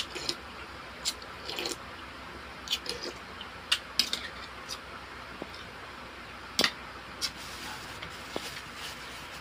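Spoon and fork clinking and scraping against a ceramic soup bowl during a meal: about a dozen irregular light clicks, with soft wet eating sounds between them.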